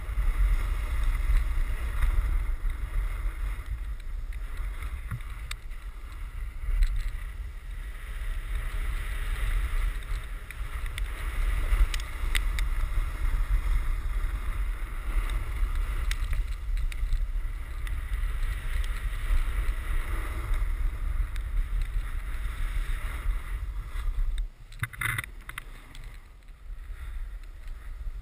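Wind buffeting the microphone of a body-mounted camera while a snowboard slides and carves down a snowy slope, a steady rush with a deep rumble that drops away near the end.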